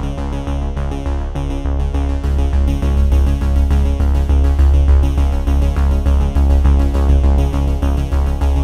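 Background music: electronic synthesizer track with a steady beat and a heavy bass line.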